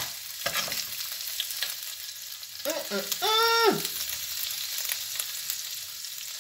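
Squid rings sizzling as they fry in oil in a non-stick pan, with scattered spitting pops and the clicks and scrapes of a slotted metal spoon turning them. About three seconds in, a short rising-then-falling cry cuts in.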